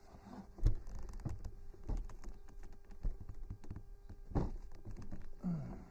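Gloved hands forcing a brass barbed fitting into the end of a rubber garden hose: irregular knocks, scuffs and rubbing of handling. The loudest knocks come about two-thirds of a second in and again about four and a half seconds in.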